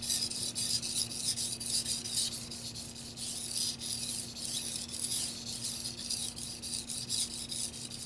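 Tojiro white-steel petty knife edge being pushed and drawn across a hard Shapton Pro water stone, a fast run of wet rasping strokes about four a second. This is the repeat sharpening pass with fewer strokes per side, after a burr has been raised on both sides.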